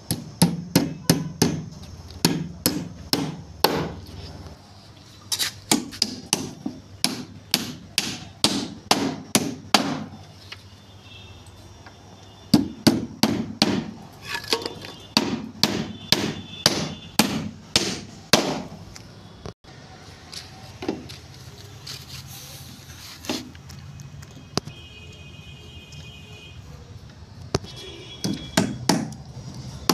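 Hammer blows on the wooden boards of a shuttering footing box, nailing the form together: quick runs of sharp strikes, about two to three a second, with short pauses between runs.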